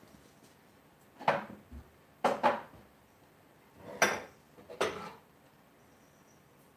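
Kitchenware being handled: about five sharp clattering knocks and clinks, each ringing briefly, as hard objects are picked up and set down.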